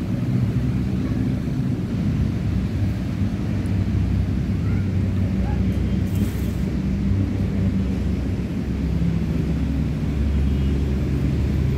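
A steady low rumble of engine noise, with a low hum running under it.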